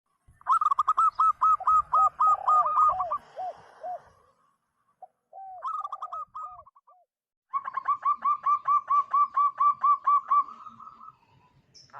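Zebra dove (perkutut) cooing: three rapid runs of clear, evenly spaced ringing notes, about four a second, with short pauses between the runs. The first run also has lower, deeper coos woven in.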